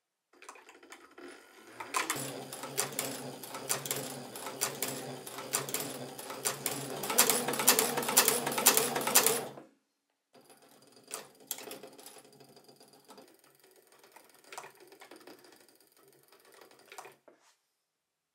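CLSP leather sewing machine driven by an electric motor through a toothed belt, sewing: a rapid clatter of needle strokes over a steady motor hum. It starts softly and gets louder about two seconds in, stops for a moment near the middle, then carries on with quieter, sparser stitches.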